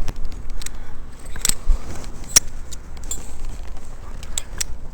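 Scattered sharp metallic clicks and clinks, about a dozen spread irregularly, over a steady low rumble.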